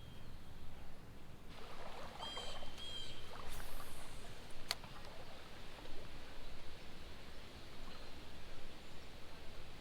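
Faint water and handling noise from wading and fishing the creek, with two short squeaky chirps about two seconds in and one sharp click about five seconds in.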